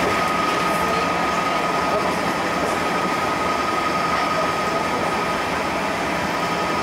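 JR Central 211 series 5000 electric train running at steady speed through a tunnel: a steady running noise from wheels and track with a thin steady whine over it.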